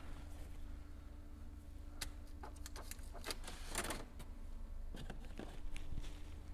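A few scattered light clicks and a short rustle, mostly in the middle seconds, over a steady low electrical hum.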